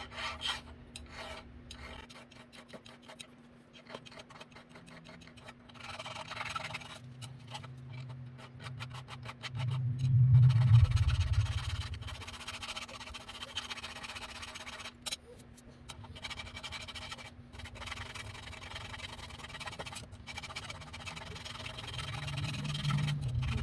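Hand file rasping against a grinder in repeated strokes. About ten seconds in comes a louder low thump or rumble.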